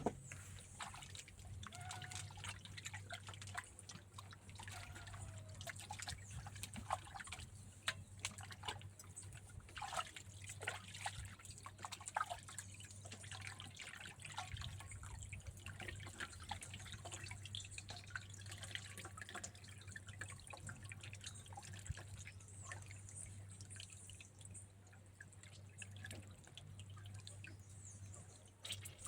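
Raw chicken pieces being washed by hand in water: faint, irregular splashes and drips throughout.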